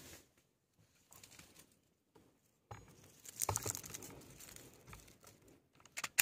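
Crinkly rustling and handling noise in several short bursts, with a quick run of sharp clicks near the end.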